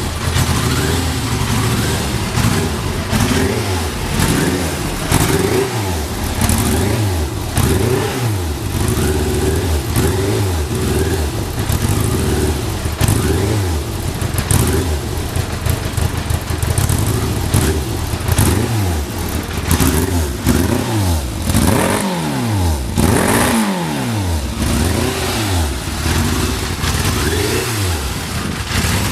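Yamaha GTS1000's inline-four engine running with the throttle blipped again and again, the revs rising and falling about every one to two seconds. The seller lists it as having no abnormal noises.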